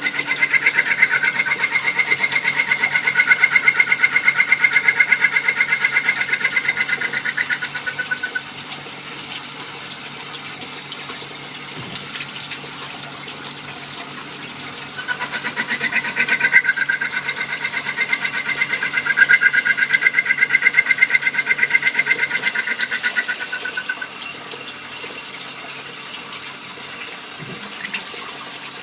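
Small-diameter automatic lathe cutting a part with liquid coolant flowing. A high, rapidly pulsing tone comes in two passes of about eight seconds each, starting near the beginning and again about halfway through, with quieter running of the machine and coolant between and after them.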